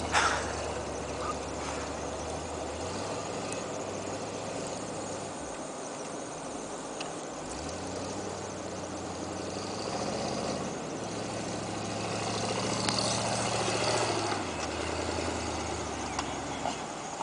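The engine of a 1977 Ford F-150 4x4 pickup runs and revs as the truck plows through deep snow, its note rising and falling several times. It gets louder near the end as the truck comes close. A short sharp burst of noise comes right at the start.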